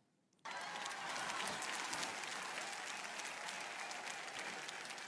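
A large congregation applauding. Dense clapping starts abruptly about half a second in and slowly tapers off.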